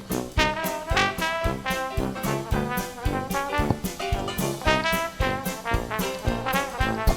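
Background music: an upbeat tune with brass instruments over a steady drum beat.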